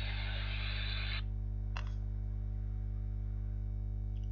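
CB radio on single sideband giving off receiver hiss between transmissions, which cuts off about a second in, leaving a steady low hum with a single click a little later.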